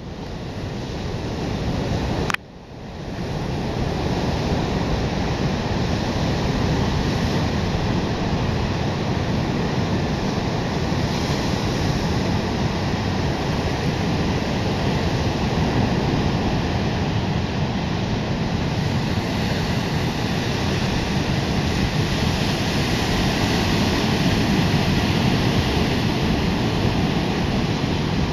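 Ocean surf breaking on a sandy beach, a steady rush of white water, with wind on the microphone. About two seconds in there is a click and the sound briefly drops out before the surf comes back.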